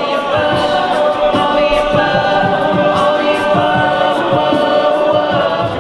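A cappella group singing held chords in close harmony, with a steady low beat under them.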